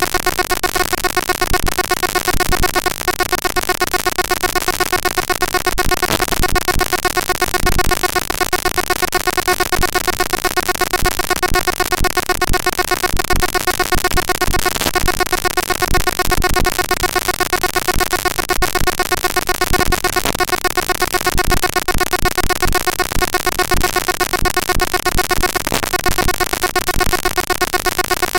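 Text output of the tshark packet sniffer played back raw as 32-bit big-endian float audio samples. It is a harsh, loud, continuous digital noise carrying a steady buzzing pitch with overtones, finely chopped by rapid clicks.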